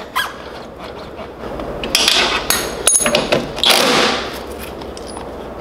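Hand tools clicking and knocking against the go-kart's hydraulic brake-line fittings as the lines are bled, with a few sharp knocks in the middle and short hissing spells around them; the lines still hold a lot of air.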